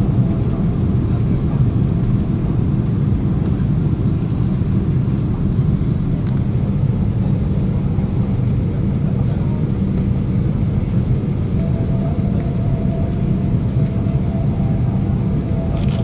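Steady cabin rumble of a Boeing 777-300 airliner on its descent to land: engine and airflow noise heard from inside the cabin. A faint higher hum joins it at the start and again from about two-thirds of the way through.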